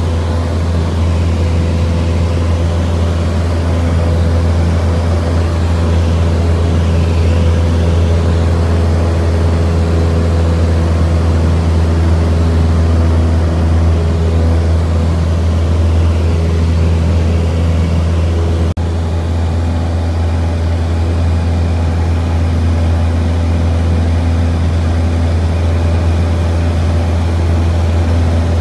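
Cessna 172's piston engine and propeller running with a steady low drone, its pitch holding constant. A brief click about two-thirds of the way through.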